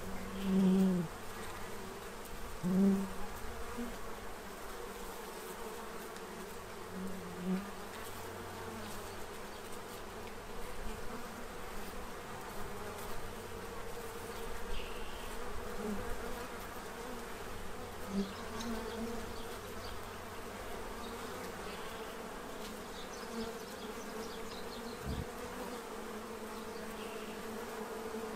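Many honey bees buzzing in a steady hum, with louder buzzes as single bees fly close by, several in the first three seconds and a few more later on.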